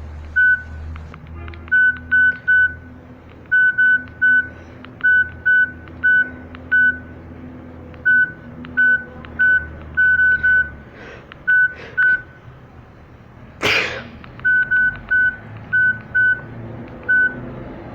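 LG mobile phone keypad beeps: about thirty short beeps, all at the same pitch, in uneven clusters as buttons are pressed. A single loud, sudden noise comes about 14 seconds in.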